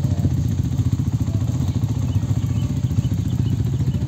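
Trail motorcycle engine idling steadily, close by, with a fast, even beat.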